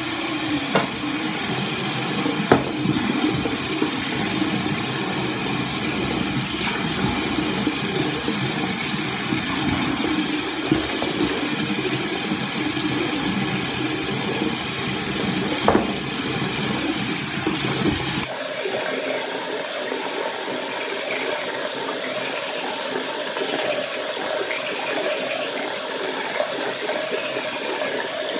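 Water running steadily from a bathroom tap, with a few light knocks of things being handled at the sink. About two-thirds of the way through, the sound changes and becomes thinner, losing its deep rumble.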